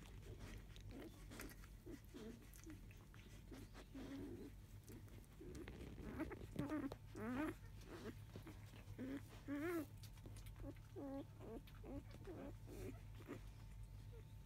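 Five-day-old Labrador retriever puppy whimpering and squeaking in a run of short, high calls, with a few louder rising whines about seven and ten seconds in.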